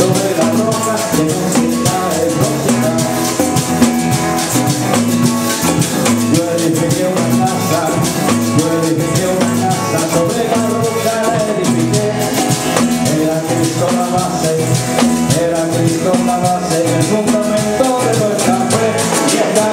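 Live church band playing an upbeat Latin-style rhythm on drum kit, congas and maracas, with pitched instruments carrying the tune.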